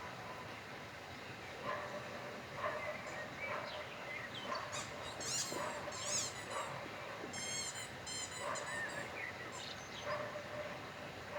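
A dog squeezing a squeaky toy, giving short squeaks over and over, with a quick run of high, rapid squeaks in the middle.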